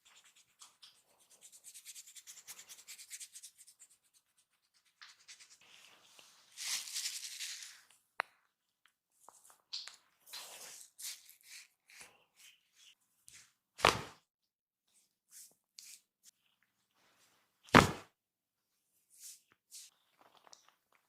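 Hands rubbing and scratching on skin and hair during a massage: quick repeated scratching strokes at first, then rubbing strokes. Two loud thumps land about four seconds apart in the second half.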